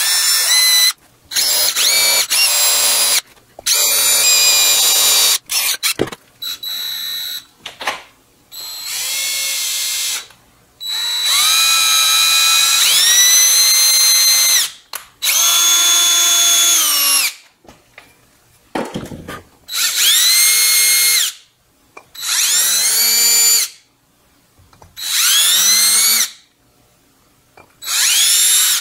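Handheld power drill boring a small set-screw hole through a sand-cast metal carburettor scoop, run in repeated bursts of one to three seconds with short pauses. Its motor whine rises in pitch as it spins up on each trigger pull.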